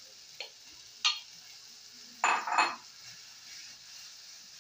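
Raw meat scraped from a metal bowl into a frying pan with a wooden spoon and stirred in: a few clatters and knocks of bowl and spoon against the pan, the loudest pair a little past the middle, over a faint sizzle of the frying vegetable base.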